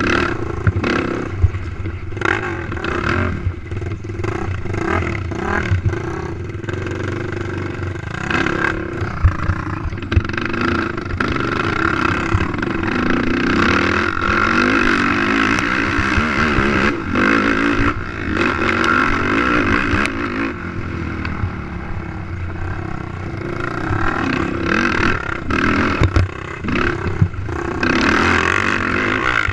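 Race quad's engine running hard and revving up and down, with frequent knocks and clattering from the machine over rough ground.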